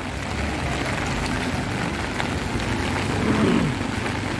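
Steady rain falling on a flooded street, with a low engine rumble from slow traffic of auto-rickshaws and cars moving through the water.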